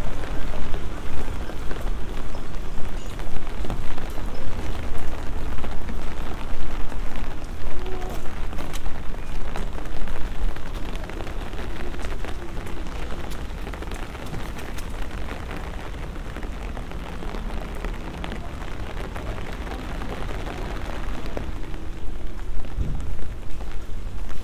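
Rain falling on a wet paved street, a dense patter of drops hitting the ground. It is louder over the first half, eases off for a while in the middle and picks up again near the end.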